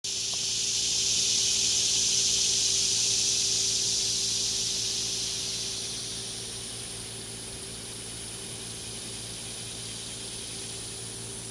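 Cicada chorus: a loud, high buzzing drone that dies down about halfway through to a fainter steady level. A thin, very high steady whine and a faint low hum run underneath it.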